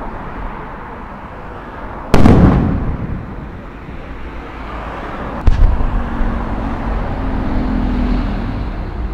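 Aerial firework shells bursting: a loud bang about two seconds in and another about five and a half seconds in, each followed by a long rolling rumble as it echoes away.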